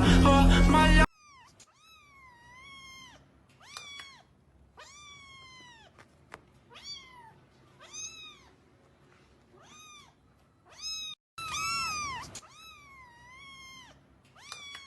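A cat meowing over and over after music cuts off about a second in: short meows that rise and fall in pitch, about one a second, with a louder burst of meows about three-quarters of the way through.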